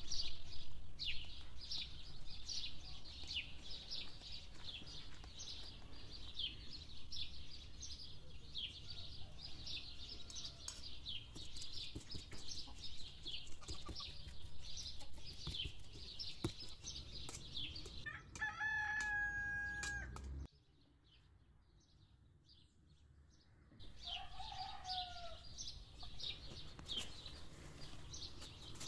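Many small birds chirping continuously in quick short notes, with a rooster crowing once about two-thirds of the way through. The sound then drops to near silence for about three seconds before the chirping resumes with a short falling call.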